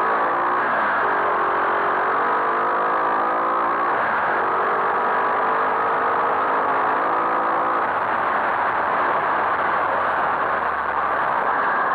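Skyteam Monkey 125 cc single-cylinder four-stroke engine accelerating, its pitch rising steadily with gear changes about one and four seconds in. After about eight seconds the engine note fades and mostly wind and road noise remain.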